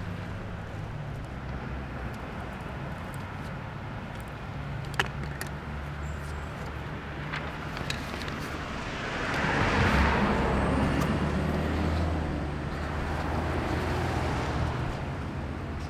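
Road traffic: a steady low engine hum, with a car passing by that swells about nine seconds in and fades away over the next few seconds. A light tap about five seconds in.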